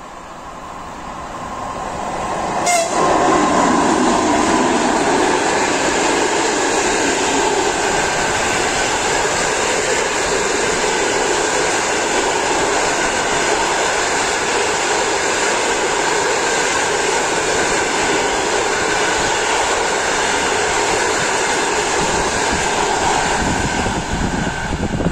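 Passenger train hauled by an EP2K six-axle DC electric locomotive passing close by. The noise builds over the first three seconds as the locomotive comes past, then the coaches roll by with a steady, even rolling noise of wheels on rails.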